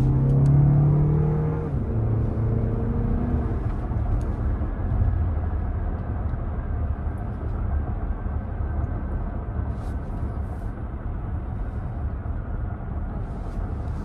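Toyota Grand Highlander driving: an engine note is heard pulling for the first couple of seconds, then eases off. After that comes a steady low rumble of road and tyre noise.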